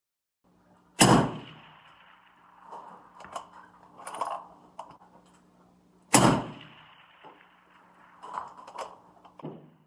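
Two rifle shots from a short-barrelled Christensen Arms MPR bolt-action in .308, about five seconds apart, each a sharp crack with a trailing echo. About two seconds after each shot come fainter knocks and clanks, the steel targets being hit at long range. A faint low hum runs underneath.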